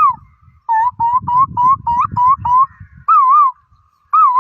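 A boy imitating the call of the Asian koel with high, pure, whistle-like notes. He gives a quick run of seven short rising notes, then wavy two-part calls.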